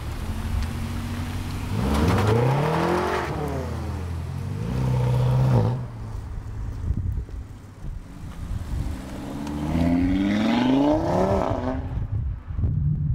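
Performance cars accelerating hard away, engines revving up with climbing pitch, once about two seconds in and again about ten seconds in.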